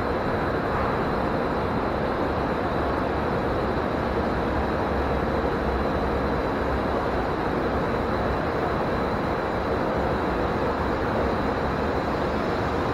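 Steady ambient noise of a large train-station hall, even and unbroken, with a faint constant high whine and a low hum, and no distinct events.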